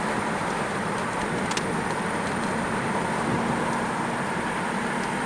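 Car driving along a road: a steady rush of tyre and engine noise.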